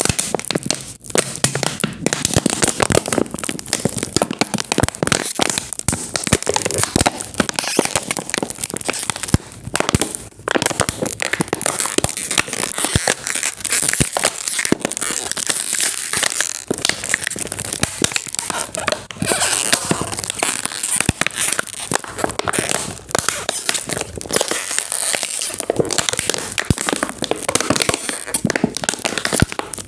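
Thin plastic bottle being squeezed and crushed by hand, with dense crackling and crinkling that goes on with only brief pauses.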